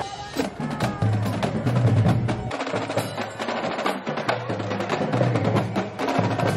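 Marching band drumline playing: snare drums rattling off quick strikes over booming bass drums, with low sustained notes underneath.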